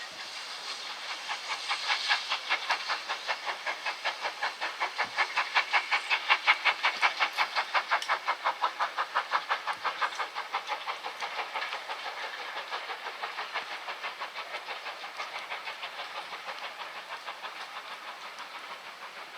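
Steam locomotive exhaust beats from GWR Large Prairie 5199, a two-cylinder 2-6-2 tank engine, working under steam: a steady rhythm of chuffs about four a second with steam hiss. It grows louder, is loudest around six seconds in, then fades as it draws away.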